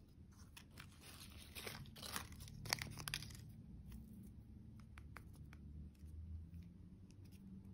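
Plastic wrapping crinkling and tearing as it is handled and pulled off lollipops: a run of crackles over about two seconds with one sharper snap, then a few light clicks.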